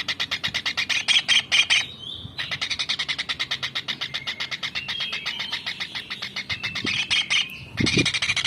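Small kingfisher (tengkek udang) calling in a fast, even chatter of high notes, about ten a second. The chatter breaks off briefly twice, and a few low thuds come near the end.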